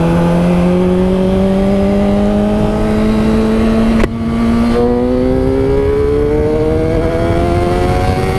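Honda CBR600RR's inline-four engine pulling hard under acceleration, its pitch climbing steadily. About four seconds in a quick upshift drops the pitch slightly, and it climbs again, over a low wind rush.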